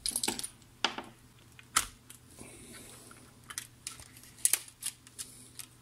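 Scattered sharp clicks and taps of steel needle-nose pliers and fingers working a cable connector loose inside the open chassis of a Fostex X-15 cassette four-track recorder, with a short rustle a little after two seconds in, over a faint steady low hum.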